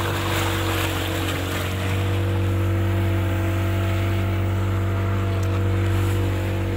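Motorboat engine running at a steady pitch, with water splashing against the bow as the boat moves. The splashing is loudest in the first couple of seconds, then eases.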